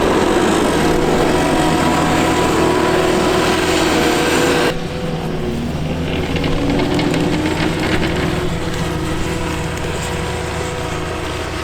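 Heavy vehicle engine running steadily under load. About five seconds in, the sound changes abruptly and becomes duller.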